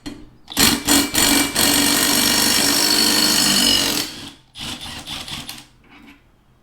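Power impact wrench running on a push mower's blade bolt to take the blade off: two short bursts, then about three seconds of steady hammering, and a few shorter bursts near the end.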